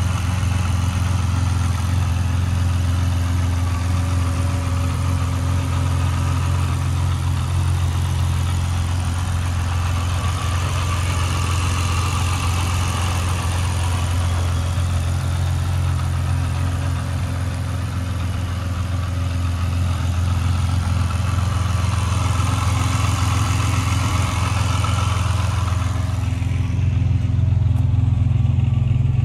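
Ferrari 612 Scaglietti's DOHC 6-litre V12 idling steadily, with a deep, even note and a higher mechanical whir from the open engine bay. Near the end the whir fades and the low engine note grows slightly louder.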